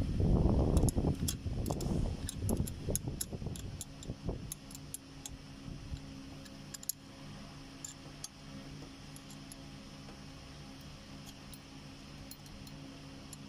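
Metal clinks and rumbling handling noise as a wrench works on the bolt of a car AC compressor's clutch hub, dying away after about four seconds into a steady low hum with scattered light metallic ticks.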